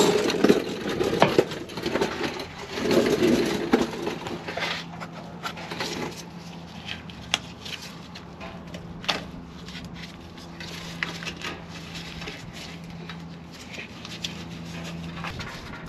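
Plastic wiring-harness connectors being worked loose from the transmission by hand. Scattered sharp clicks and scraping, with heavier rustling and scraping in the first few seconds.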